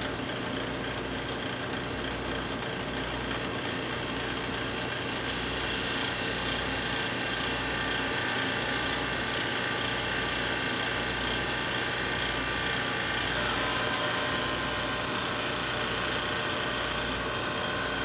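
Vacuum pump and high-voltage discharge rig running steadily while the argon-filled chamber is held at low pressure. A mechanical hum carries a slow low pulsing under it and a high whine above it.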